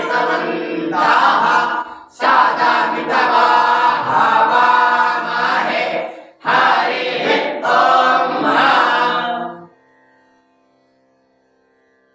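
Young students chanting Vedic Sanskrit mantras together in phrases with short breath pauses, ending about ten seconds in. Faint instrumental music follows.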